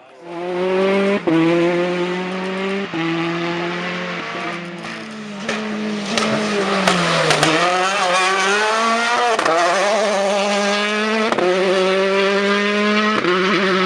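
Rally car engine running hard at high revs, with short breaks at gear changes several times; about halfway through the pitch falls as it slows and then climbs again.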